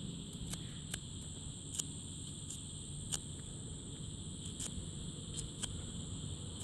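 Small DC arc drawn from a 48-volt solar panel, crackling faintly: sharp clicks at irregular moments over a steady low hum and a high steady whine.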